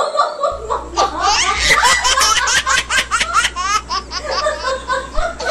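A woman laughing hard in rapid, high-pitched bursts, with a man laughing along.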